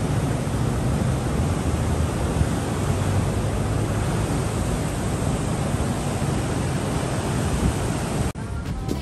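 Pacific surf breaking on a sandy beach: a steady, even rush of waves, heaviest in the low end. It cuts off suddenly near the end, and music with a beat comes in.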